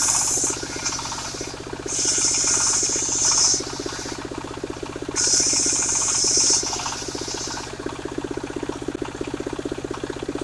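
Portable circular sawmill's blade cutting Jabon wood: three cuts with a high-pitched hiss, one ending about half a second in, the others starting at about two and five seconds in, each lasting about a second and a half. Between and under the cuts the engine that drives the saw runs steadily with a fast pulse.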